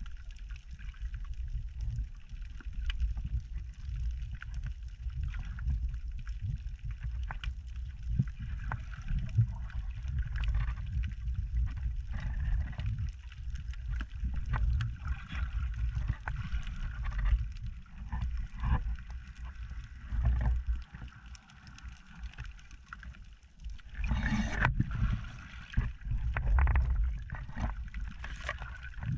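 Underwater sound heard through a GoPro's waterproof housing: a low rumbling surge of choppy water, scattered with small sharp clicks and crackles. About 24 seconds in, a louder rushing of water lasts a few seconds.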